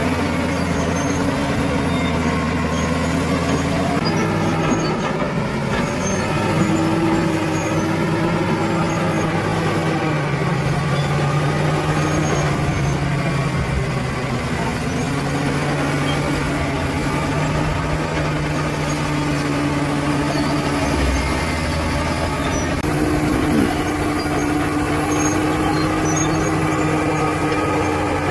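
Bulldozer's heavy diesel engine running under working load, its note rising and falling several times as the load changes.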